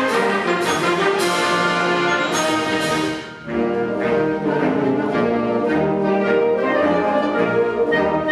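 Concert band playing a lively tune, with brass and woodwinds together and sharp accented hits about twice a second for the first three seconds. The sound drops away briefly a little after three seconds in, then the band comes back in with the brass to the fore.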